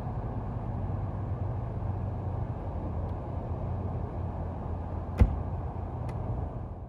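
2011 Mercedes-Benz SL550 retractable hardtop closing: a steady low hum from the roof mechanism, then a sharp thump about five seconds in as the trunk lid shuts, and a lighter click about a second later.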